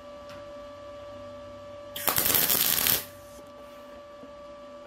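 MIG welding arc crackling for about a second, a short tack weld on steel, over a steady electrical hum.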